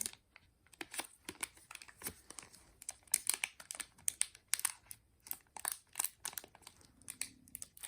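Plastic protective sleeve and packaging being handled, crinkling and rustling in many short, irregular crackles.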